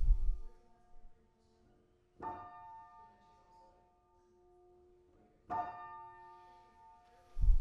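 Slow, sparse music: a bell-like chord struck twice, about three seconds apart, each ringing and fading away, with a deep low thump at the start and again near the end.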